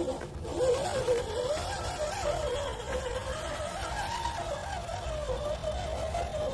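Electric motor and gearbox of a 1/10-scale RC Toyota Land Cruiser LC80 crawler whining as it drives off-road, the pitch rising and falling with the throttle and load.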